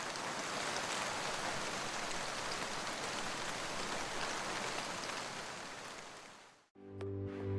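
A steady, even rushing hiss with faint ticks in it, which fades out towards the end. Electronic music with a steady beat starts just before the end.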